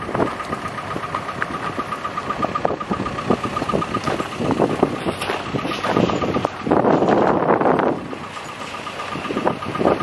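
Cat 420F backhoe's diesel engine idling steadily, with a thin high whine pulsing rapidly over it, broken for a moment after the middle. Rushes of wind on the microphone come and go.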